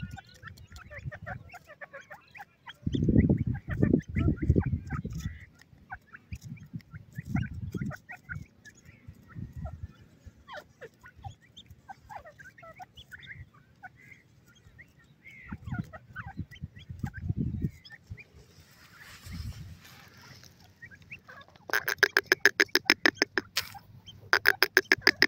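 Grey francolins foraging, with many short, high chick peeps scattered throughout and a few bursts of low rumbling. Near the end an adult grey francolin calls close by: two loud, rapid series of repeated clucking notes, several a second.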